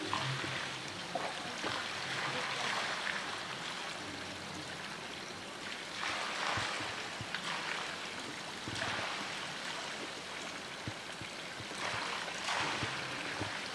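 Running water in the polar bear pool: a steady rush of water that swells every few seconds.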